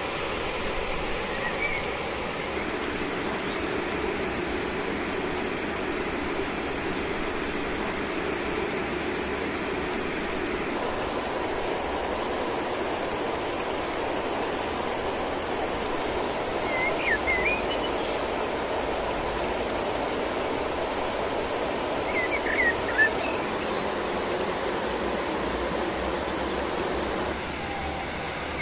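Steady rushing outdoor background noise with a high, thin steady whine over most of it, and a few short bird chirps about two thirds of the way through.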